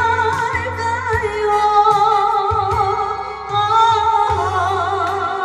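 A woman singing a Korean ballad with vibrato over a backing band with a steady bass beat, finishing a line and leading into a short instrumental fill.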